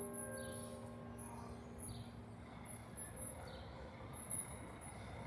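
The last ring of the Independence Hall tower bell fades out over the first second or so, leaving faint outdoor city hum with a string of short, thin, high chirps.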